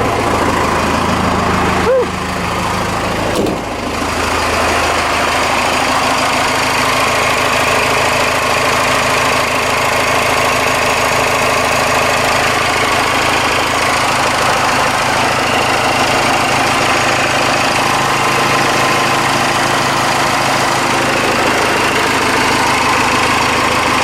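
Cummins 6BT 5.9-litre turbodiesel inline-six running steadily, with a brief click about two seconds in. It is running on the newly refitted fuel supply and return line.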